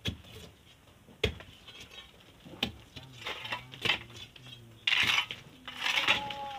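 Long metal pry bar jabbed and levered into a stony sand slope: sharp metallic clinks about every second and a half, then a longer, louder scraping rush near the end.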